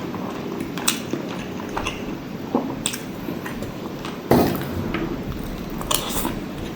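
Close-miked chewing of soft, fatty braised pork adobo and rice: wet mouth sounds, with sharp clicks a few times and one louder knock about four seconds in.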